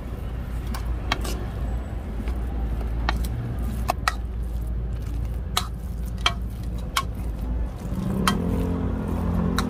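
A metal spoon stirring and scraping wet ground-pork and cabbage filling in a bowl, with scattered sharp clinks of the spoon against the bowl. A steady low rumble runs underneath, and a droning hum comes in about eight seconds in.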